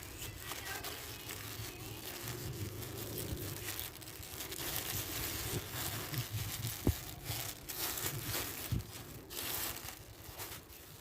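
Plastic parcel packaging being torn open and crinkled by hand, with a couple of sharp knocks about seven and nine seconds in.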